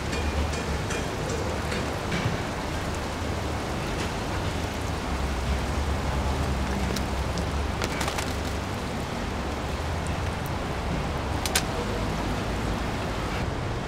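Steady rushing and bubbling of water in aerated live-seafood tanks, with a low hum underneath and a few sharp clicks and knocks as the net works in the tank.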